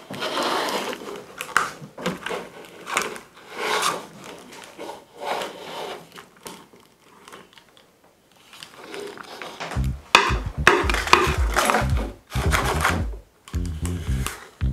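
Rubbing and scraping as the 3D-printed lamp's spring-loaded arm and shade are moved by hand. Background music with a heavy bass beat starts about ten seconds in.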